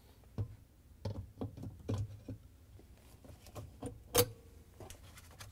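Scattered light clicks and knocks of a dishwasher chopper assembly's metal blade and screen being seated in the plastic pump housing and a wrench being pulled out, with one sharp click about four seconds in that rings briefly.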